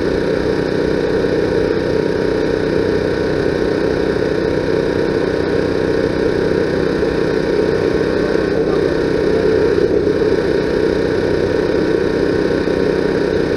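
A steady, engine-like drone with constant hum tones running through it.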